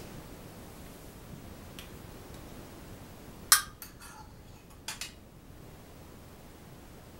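A few sharp metallic clinks of hand tools being picked up and knocked together, the loudest about three and a half seconds in and a pair near five seconds.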